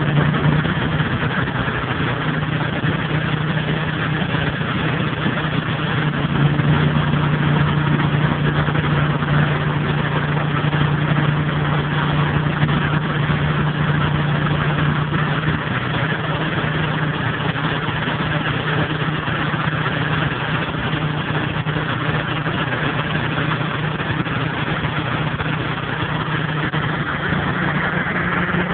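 Steady crackle of arc welding over the even hum of a running engine.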